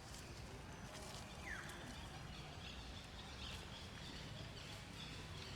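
Quiet outdoor ambience: a steady low rumble, one short falling chirp about a second and a half in, and faint high chirps later on.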